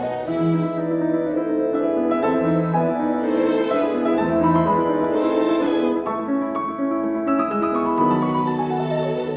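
Background instrumental music: piano with bowed strings in a light classical style.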